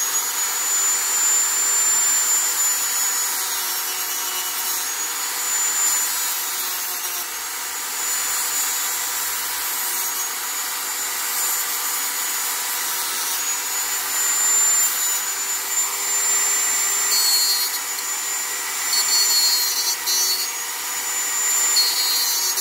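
Dremel rotary tool running at speed with a sanding band, grinding against the bead of a plastic RC wheel rim to scuff and roughen it so that tyre glue will grip. Its steady high whine dips slightly now and then over the rasp of the sanding.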